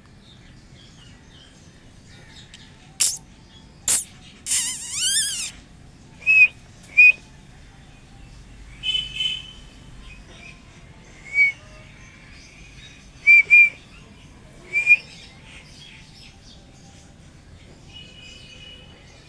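Small birds chirping: short, loud single chirps scattered through, some in quick pairs, with a fast wavering trill about five seconds in. Two sharp clicks come just before the trill.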